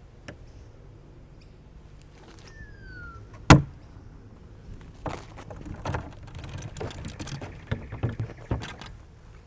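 Knocks and thumps from a freestanding door frame being handled: one loud sharp thump about three and a half seconds in, then a run of clattering knocks and rustles over the last few seconds.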